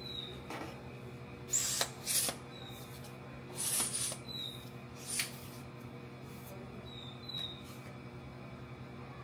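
Telescoping selfie stick being collapsed: its metal sections slide and clack together in a handful of sharp clicks and short rattles over the first five seconds. A few short high chirps and a steady low hum sit underneath.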